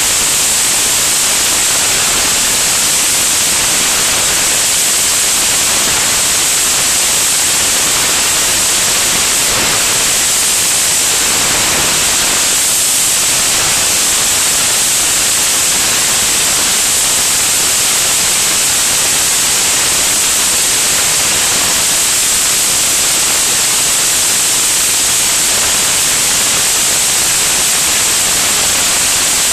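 Steady, loud rushing hiss of wind over a camera mounted under an aircraft's wing in flight.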